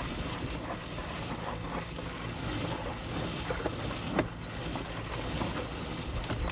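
Sewer inspection camera being pushed down a PVC drain line: steady scraping, rumbling noise of the camera head and push cable moving through the pipe, with a few sharp knocks, the loudest about four seconds in.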